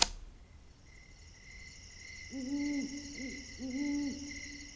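An owl hooting, several low hoots in a loose series from about two seconds in, over a steady high chirring of night insects that begins about a second in.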